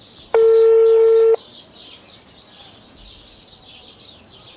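Telephone ringback tone heard through the phone's speaker: one steady beep about a second long, the signal that the call is ringing on the other end.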